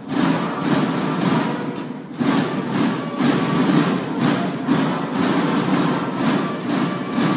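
A banda de guerra's massed field drums playing a march in unison, a dense run of drum strokes, dropping out briefly about two seconds in before coming back in.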